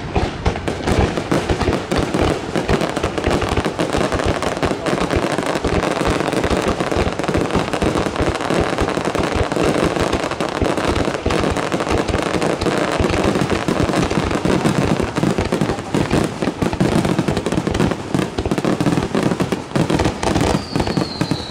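Fireworks display in a dense, unbroken barrage of rapid shell bursts, one report overlapping the next. A whistle falling in pitch comes in near the end.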